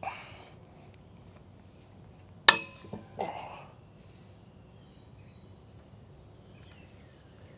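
A single loud, sharp metallic crack with a brief ringing about two and a half seconds in, from the digital torque meter adapter under twisting load; it comes from the torque meter, not the maple stick. Short scraping rustles just before and after it.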